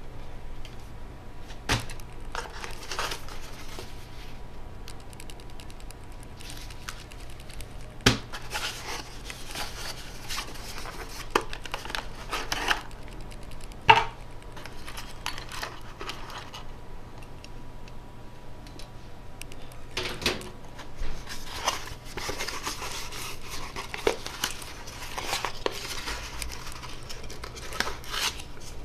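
Cardboard packaging of a boxed CPU being handled: flaps and inserts rustling and scraping, with sharp clicks and knocks now and then. The loudest knock comes about halfway through.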